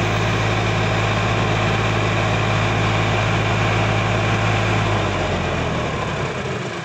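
Sonalika DI-50 RX tractor's diesel engine running hard and steady while its hydraulics tip the loaded trolley. About five seconds in, the engine note drops and eases off.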